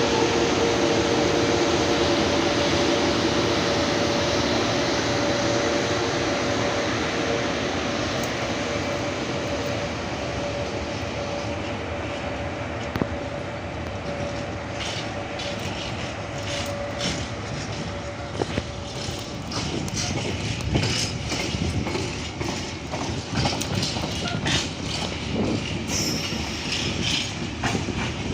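A train passing close by. First a steady rush with a humming tone, then a fast clatter of wheels over rail joints as the wagons go past, with a brief high squeal near the end.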